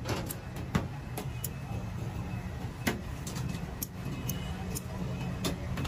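A knife clicking and tapping irregularly against a steel tray as roasted chicken is cut apart, over a steady low hum.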